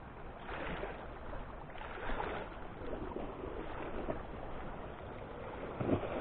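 Sea water washing and lapping against the rocks at the waterline, in soft surges every second or two, with a steady low rumble of light wind on the microphone.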